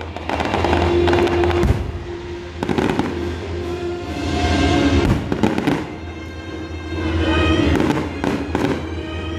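Aerial fireworks shells bursting in a string of sharp bangs and crackles, over music playing.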